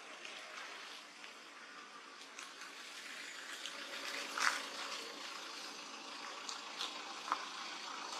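Plastic snack packet crinkling and crackling in short bursts as a young monkey tugs and bites at it, the loudest crackle about halfway through, over a steady outdoor hiss.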